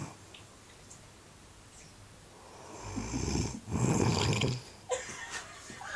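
A woman snoring with a gargling snore: a quiet stretch, then two rough snores in quick succession about three seconds in.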